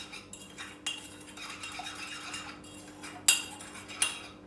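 A spoon stirring melted butter and brown sugar in a mug, scraping and rattling against the sides, with a few sharp clinks, the loudest about three seconds in.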